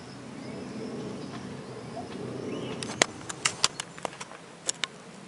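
Steady distant hum of an aircraft flying overhead, followed about three seconds in by a sharp click and a quick run of clicks and knocks from the camera being handled.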